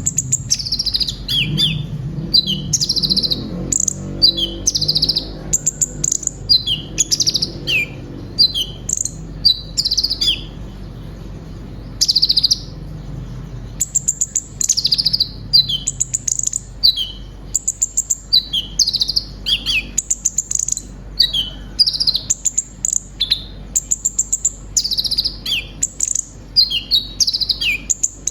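A sunbird (kolibri ninja) sings fast, high-pitched chirps and short downward-sliding notes in repeated bursts. The song is packed with phrases copied from other birds, and there is a brief pause about twelve seconds in.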